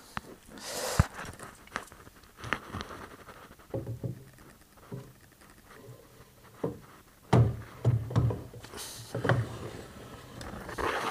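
Mild-steel saddle slides being fitted onto a home-made lathe's steel bed ways: irregular metal clicks and knocks with short scrapes as the parts are set down and slid, a few louder knocks in the second half.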